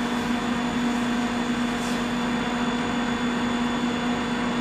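Forge Force induction heater unit running with a steady hum over a constant hiss.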